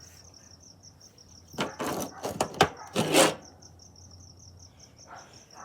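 Crickets chirping in a steady, rapid pulsing trill. From about a second and a half in, there are two seconds of loud clatter and scraping with one sharp click, from handling things at the grill.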